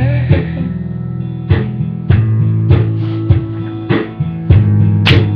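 Instrumental backing music between sung lines: guitar and bass over a steady beat, with a hit about every half second.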